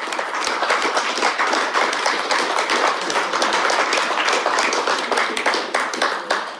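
Audience applauding, with sharp hand claps close by, easing off near the end.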